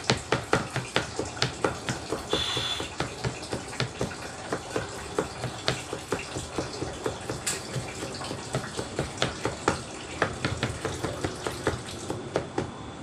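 Kitchen knife chopping garlic on a cutting board: quick, regular knocks of the blade striking the board, about four a second.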